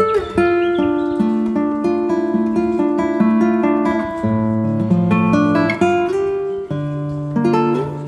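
Acoustic guitar music: plucked notes and chords changing about every half second to a second.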